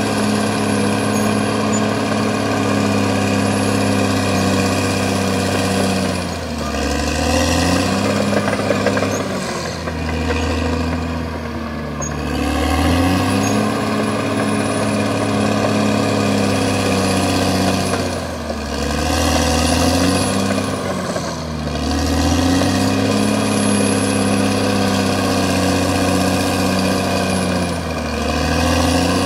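CAT D6R XL bulldozer's diesel engine running hard, its pitch dropping and climbing back several times as it works.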